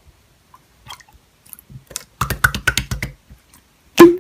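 Clear slime being squished and pressed. A few faint clicks are followed, about two seconds in, by a quick run of clicks and pops, and one loud pop comes near the end.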